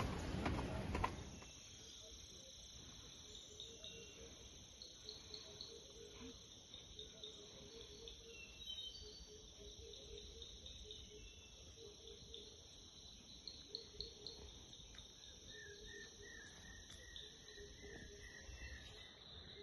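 Faint insect chorus in woodland: steady high-pitched buzzing with pulsing trills. A louder jumble of sound in the first second cuts off.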